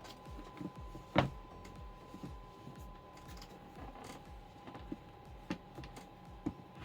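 A sneaker being handled and turned over in the hands, giving soft rustles and small knocks, with one sharper knock about a second in. A faint steady high hum runs underneath.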